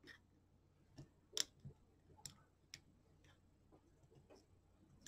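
Faint, irregular light clicks and taps of a small hand tool against the plastic housing of an HP 48SX calculator as foam rubber is pressed into the cavity under the keyboard flex cable. About seven clicks, the sharpest about one and a half seconds in.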